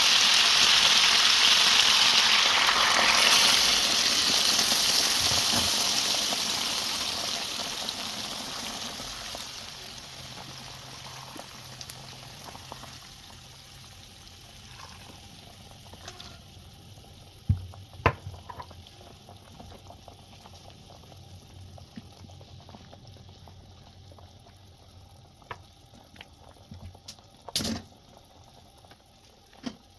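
Food frying in hot oil: a loud, even sizzle that fades steadily away over the first ten seconds or so, leaving a quiet background broken by a few sharp knocks, two close together in the middle and one near the end.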